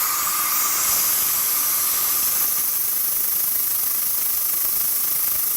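Machine cutting out an off-centre bolt hole: a steady hiss with a faint spindle whine that fades in the first couple of seconds.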